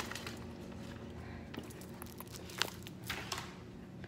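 Things being handled in an open refrigerator: a few light knocks and plastic rustles over a steady low hum.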